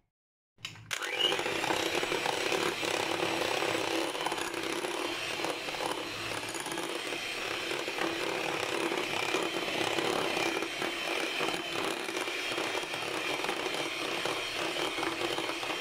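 Electric hand mixer running steadily, its twin beaters creaming butter and powdered sugar in a glass bowl; it starts about a second in.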